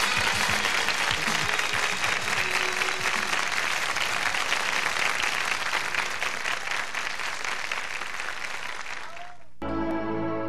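Studio audience applauding, with a few of the band's last notes fading beneath it. About nine and a half seconds in the applause cuts off abruptly and plucked-string music, guitar-like, begins.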